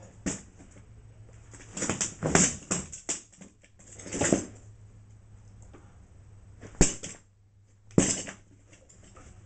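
A person's breathy gasps and grunts, in bursts about two and four seconds in, with a few sharp knocks later on.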